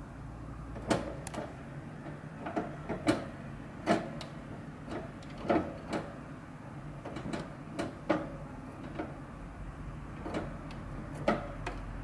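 Budgerigar pecking and biting at pea shoots in a plastic holder clipped to the cage wire: sharp, irregular clicks and taps, about fifteen of them, some in quick pairs.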